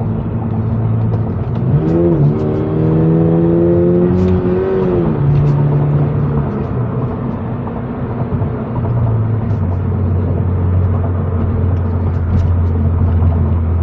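Toyota GR86's flat-four engine through an HKS Spec-L exhaust, heard inside the cabin. About two seconds in the engine note rises and climbs for a few seconds, then drops sharply and settles into a lower steady drone, which drops once more near the end.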